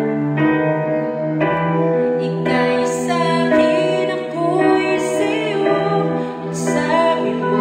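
Instrumental passage of a slow, tender worship song: sustained keyboard chords under a melody line, with three short bright cymbal-like accents about three, five and nearly seven seconds in.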